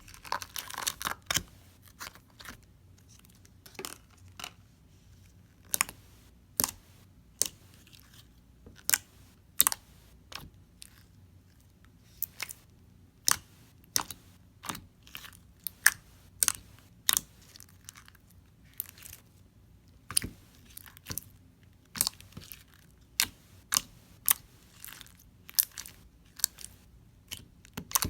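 Stretchy metallic silver slime being handled, pressed and poked, giving sharp irregular clicks and pops, about one or two a second.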